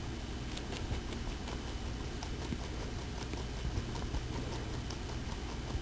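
Angora rabbit chewing parsley: a quick run of small crisp crunching clicks, two or three a second, over a low steady hum.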